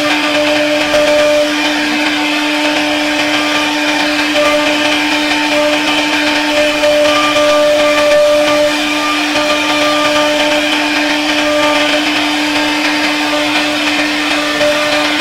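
CNC router spindle running at a steady pitch with a constant hum while its profiling bit cuts a stepped raised-panel moulding into a wooden door board. A higher whine and the hiss of cutting come and go as the bit works through the wood.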